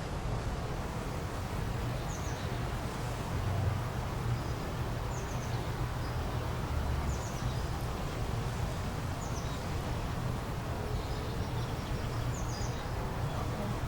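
Outdoor ambience: a steady low rumble under a bird repeating a short, high chirp every second or two.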